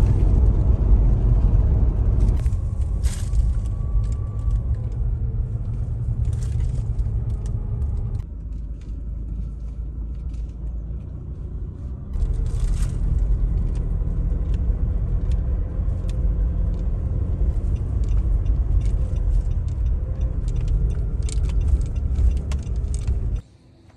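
Low rumble of a car driving, heard from inside the moving car, with light clicks and rattles over it. It drops quieter for a few seconds in the middle and cuts off just before the end.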